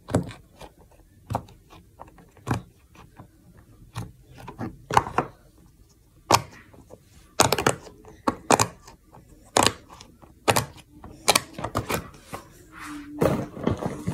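Plastic fidget toys being handled: an irregular series of sharp clicks and knocks, roughly one a second, some in quick pairs, with a short rustle near the end.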